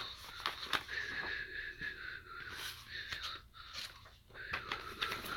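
Paper magazines being handled: irregular crinkling and rustling with small clicks as the pages and covers are moved and shuffled.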